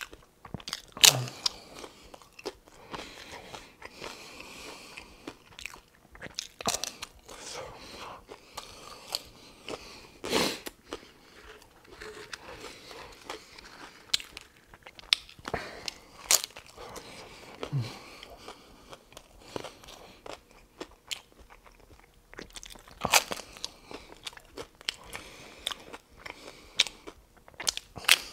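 A person biting into and chewing crispy hard-shell corn tacos: sharp crunches every few seconds, the loudest about a second in, with quieter chewing between them.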